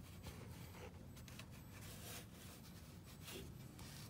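Near silence with faint rubbing and handling noises: a hand threading the new oil filter onto its housing, over a low steady hum.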